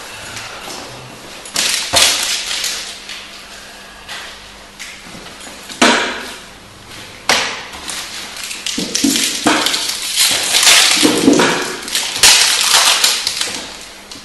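Crinkling and crackling of trading-card booster-pack wrappers and cards being handled: a few sharp crinkles in the first half, then a longer spell of dense crackling through most of the second half.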